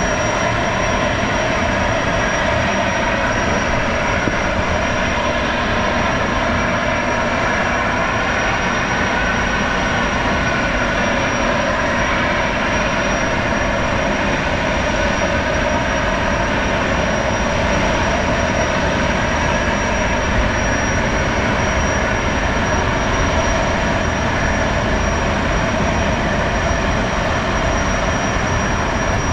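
Gas-turbine engines of a Boeing Jetfoil high-speed passenger hydrofoil running with a steady, jet-like whine.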